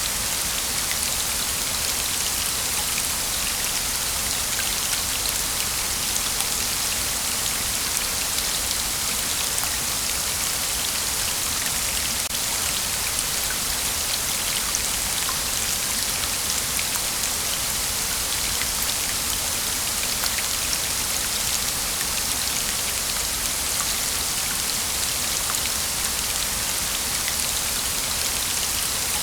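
Waterfall: steady hiss of falling water, flecked with many fine splashes.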